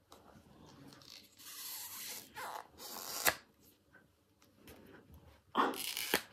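Phone case being worked onto an iPhone 13 Pro Max by hand: scraping and rubbing, a sharp click about three seconds in, and more scraping near the end.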